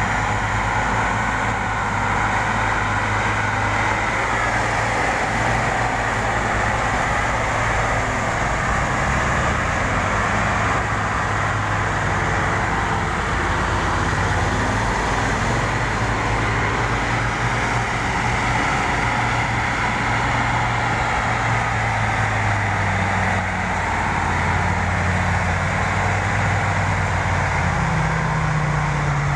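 Excavator's diesel engine running steadily, its low hum shifting in pitch a few times and stepping up near the end.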